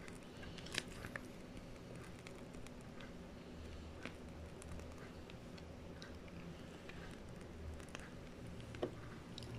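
Faint handling sounds of a pastry bag piping whipped chantilly cream rosettes, with a few soft clicks over a low steady hum.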